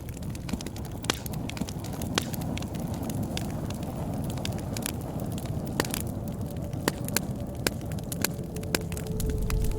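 Bonfire crackling, with many sharp snaps and pops of burning wood over a low, steady rumble of flame. A steady tone comes in near the end.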